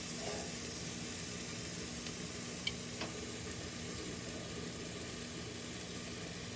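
Pork chops sizzling steadily on a barbecue grill turned down low, with a couple of light clicks near the middle.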